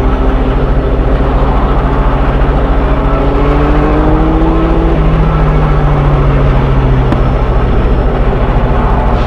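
Train engine running loudly with a steady rapid throb, its tones slowly shifting in pitch, one rising and one falling.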